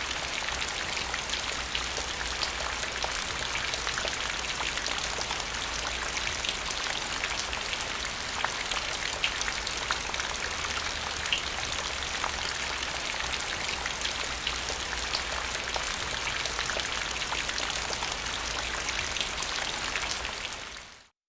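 Steady rain falling on the ground: a dense hiss dotted with the ticks of single drops striking. It fades out quickly about a second before the end.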